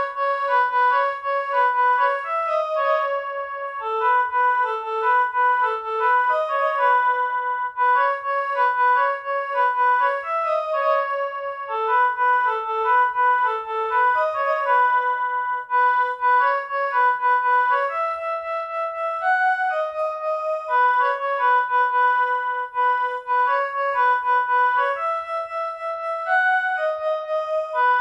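Casio SA-21 mini keyboard played one note at a time in a piano-like voice: a quick melody of short repeated notes with no accompaniment.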